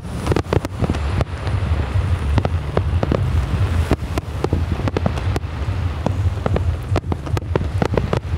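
Fireworks display: a rapid, irregular string of sharp bangs and crackles over a steady low rumble.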